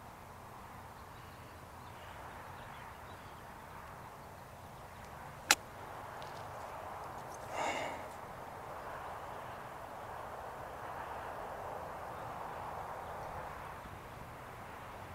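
A golf wedge strikes a ball once on a short chip shot: a single sharp click about five and a half seconds in, over steady outdoor background noise. A short, fainter sound follows about two seconds after the strike.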